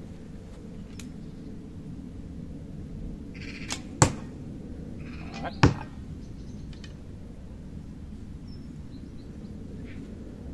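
Arrows shot from a 3D-printed recurve-style bow: each time a brief whoosh, then a sharp thwack as the arrow strikes the box target. This is heard twice, about a second and a half apart, four and five and a half seconds in.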